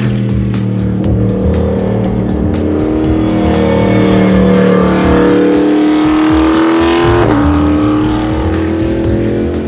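Cadillac DPi-V.R prototype race car's V8 running hard past the track, its pitch climbing as it accelerates, then dropping sharply about seven seconds in and climbing again. Music plays underneath.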